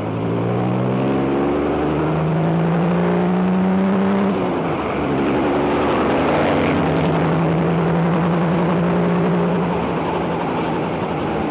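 Racing car engine heard onboard under hard acceleration, its pitch climbing for about four seconds, then dropping sharply at a gear change and running steady at high revs.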